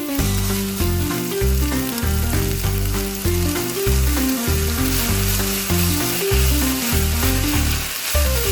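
Seaweed stems sizzling as they are stir-fried in oil in a pan: a steady frying hiss. Background music with a melody and a pulsing bass line plays alongside.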